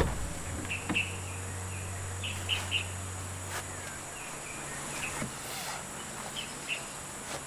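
Birds chirping in short calls over outdoor ambience. A sharp click right at the start as the Suzuki Jimny's driver door is unlatched and opened, then a few lighter knocks. A low steady hum stops about four seconds in.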